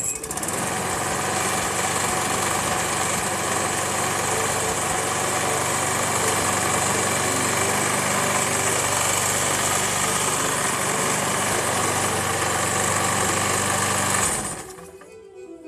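Briggs & Stratton engine of a Brute 22-inch walk-behind lawn mower starting up and running steadily at a constant speed, then cutting out near the end. It is the first start after about a year of storage, and it starts without trouble.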